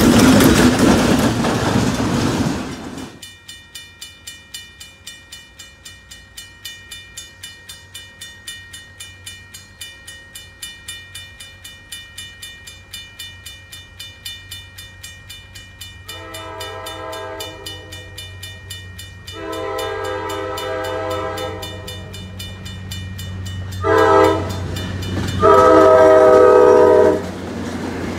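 A diesel train passes close by for about three seconds; then a grade-crossing bell rings steadily about twice a second while the approaching New Haven FL9 diesel locomotive's air horn sounds the crossing signal: two long blasts, a short one and a long one, the last the loudest.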